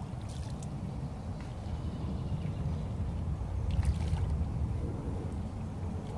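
A hooked fish splashing and thrashing at the surface beside a landing net as it is played in. The strongest splashes come about four seconds in, over a steady low rumble.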